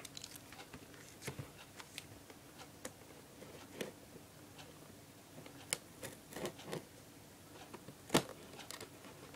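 Scissors cutting and scraping at packing tape on a cardboard box: scattered short scratches and clicks, the loudest about 4, 6 and 8 seconds in.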